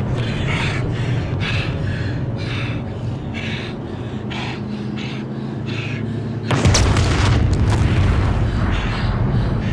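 Dynamite explosion about six and a half seconds in: a sudden loud blast that rolls on as a heavy rumble for several seconds. Before it, film score music with a pulsing beat.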